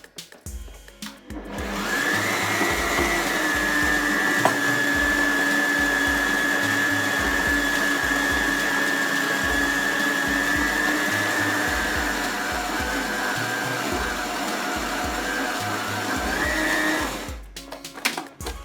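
Food processor motor running steadily with a whine, grinding raw chicken breast, bread and onion into a fine paste. It starts about a second and a half in, and near the end it stops after a brief rise in pitch.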